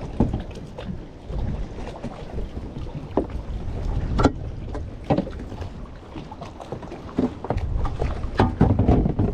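Wind rumbling on the microphone, with scattered knocks and clunks on a small fishing boat and a busier cluster of them near the end.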